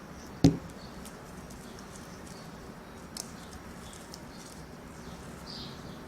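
Borax-activated slime being kneaded and stretched by hand: faint wet clicks and squelches, with one sharp pop about half a second in.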